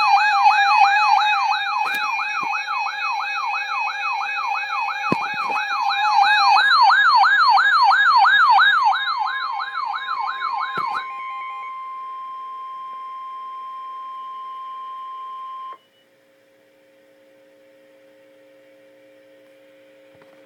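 An electronic siren wailing rapidly up and down, two to three sweeps a second, over a steady tone. About eleven seconds in it gives way to a single steady alert tone, which cuts off about five seconds later and leaves a faint low hum.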